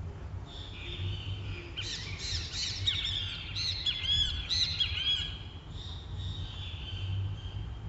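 Great kiskadees (bem-te-vis) calling, several birds at once, in a dense burst of overlapping high arching calls from about two to five seconds in that thins out afterwards.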